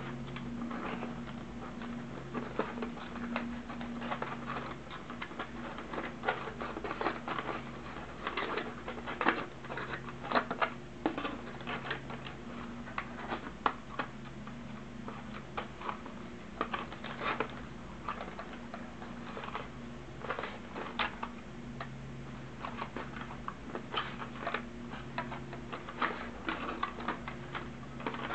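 Cardboard box being handled and its tabs and flaps worked open by hand: irregular scraping, tapping and clicking of cardboard throughout, with a low hum that comes and goes.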